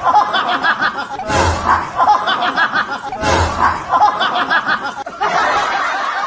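Human laughter, the same laugh burst repeating about every two seconds like a looped sound effect, changing to a different laugh about five seconds in.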